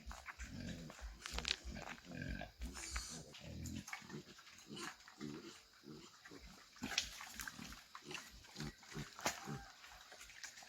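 Pigs grunting, a run of short, low grunts one after another, with scattered clicks and knocks.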